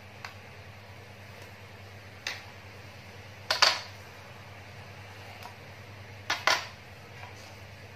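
Kitchen utensils being picked up and set down: knives and a plastic grater knocking against a wooden cutting board in a few short clacks, the loudest a quick double clack about halfway through and another double clack near the end.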